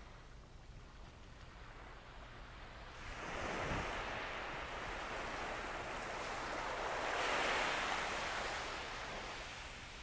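Small waves washing up over a sandy beach in a calm sea. Quiet for the first three seconds, then the wash rises, swells to its loudest about seven and a half seconds in, and fades near the end.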